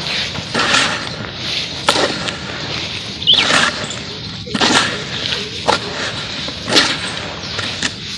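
Dried charcoal crumbling and cracking as it is broken apart, with a sharp crunch about once a second over a gritty crackle.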